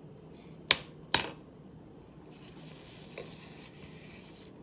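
Two sharp clinks of a spoon against a coffee cup, about half a second apart, the second ringing briefly, then a faint knock about three seconds in.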